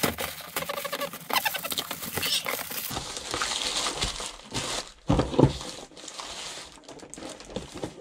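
Plastic packaging rustling and crinkling as a bag and plastic wrapping are pulled off a cardboard box, with a louder knock about five seconds in.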